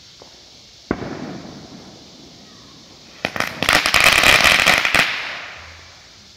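Supreme Fireworks super jumbo crackling ball going off. A sharp pop and short hiss come about a second in; then the ball bursts into about two seconds of dense crackling, loudest in the middle, trailing off.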